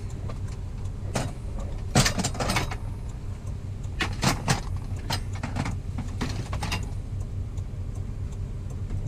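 Scrap metal pieces and cables clattering and clinking as they are shifted around on a van's floor, in a scattering of sharp knocks over several seconds, over a low steady rumble.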